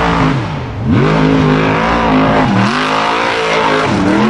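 Formula Offroad buggy engine revving hard. Its pitch drops sharply about a second in and again around two and a half seconds in, climbing back up each time as the throttle is lifted and reapplied.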